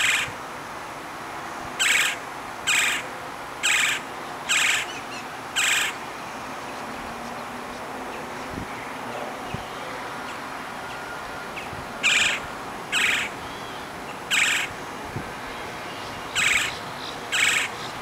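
Woodpecker giving short, loud single calls in two bouts. There are six calls about a second apart, a pause of about six seconds, then five more.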